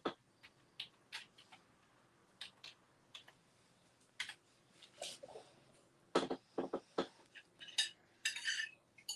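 Scattered light clicks and knocks of painting tools and a small canvas being handled on a hard worktable, with a cluster of knocks about six seconds in and a brief clinking near the end.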